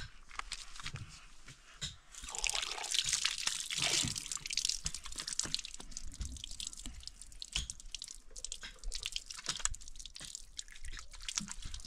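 Water running from a brass tap on a plastic water tank and splashing over a child's hands as she washes them. The flow starts about two seconds in, is strongest for the next couple of seconds, then goes on with uneven splashing and dripping.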